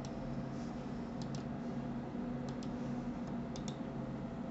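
Computer mouse buttons clicking: about four quick double clicks, each a press and release. Under them runs a steady low hum.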